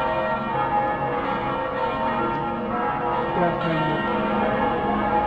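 Cathedral church bells ringing continuously, with many tones overlapping and held without a break.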